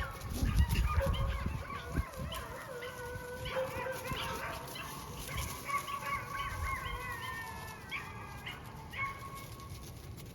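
Collie puppies whining and yipping, several thin, wavering high cries overlapping.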